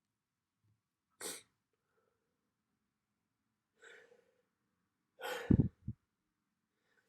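A person sneezing: a sharp breath about a second in and a short inhale near four seconds, then a loud sneeze just after five seconds whose blast of air thumps the microphone, with a brief catch of breath after it.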